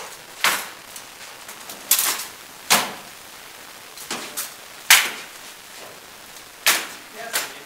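Sharp knocks of rattan combat weapons striking shields and armour, about eight irregular blows, each ringing briefly in a hard-walled room.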